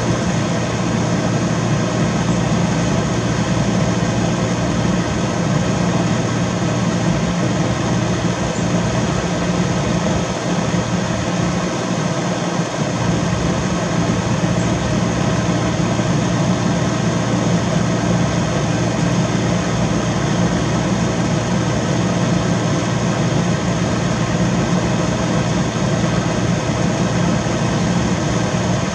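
A steady mechanical hum made of several fixed tones, like a motor or machine running without change.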